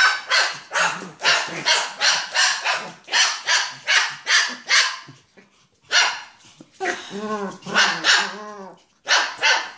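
Dog barking excitedly in a rapid series of sharp barks, about three a second, then after a short pause a few longer, drawn-out barks and two more quick barks near the end.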